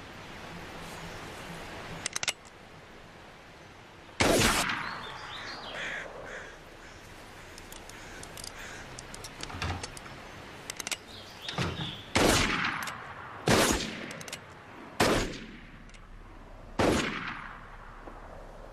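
Revolver gunshots: one sharp shot, then after a pause four more about a second and a half apart, each trailing off in an echo.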